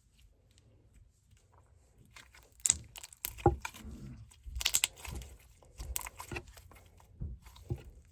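Slime being squeezed and worked by hand, making irregular sharp pops, clicks and crackles that begin after a couple of seconds.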